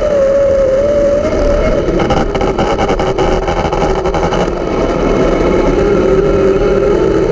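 Dirt late model race car's V8 engine running hard at a fairly steady pitch that wavers slightly up and down, with a couple of seconds of rapid crackling about two seconds in.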